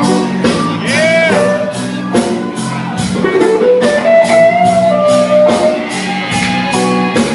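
Live blues band playing: an electric guitar bending notes over held chords and a steady drum beat.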